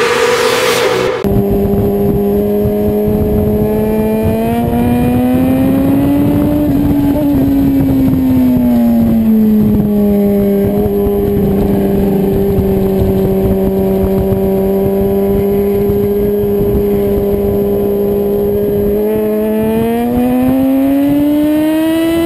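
Sport motorcycle engine at high revs, recorded by an onboard camera, with heavy wind rush over it. The engine note climbs for a few seconds, drops back, holds steady for a long stretch through the corner, and climbs again near the end.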